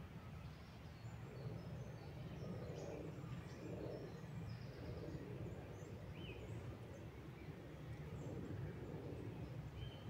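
Woodland ambience: a steady low rush that swells now and then, with small birds chirping here and there, one brief rising call about six seconds in.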